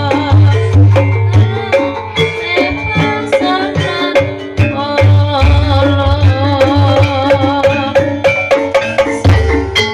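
Ebeg gamelan music: hand-played kendang drums with a heavy, deep drum tone and rapid struck percussion under a wavering melody line.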